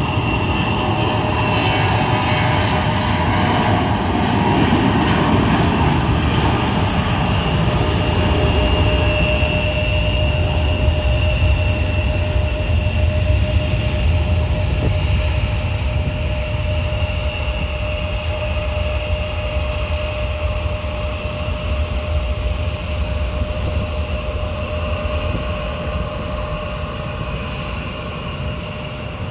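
Boeing 737-800's twin CFM56-7B turbofan engines at takeoff thrust as the jet rolls down the runway, lifts off and climbs away: a steady deep rumble with a steady high whine, easing off slightly near the end.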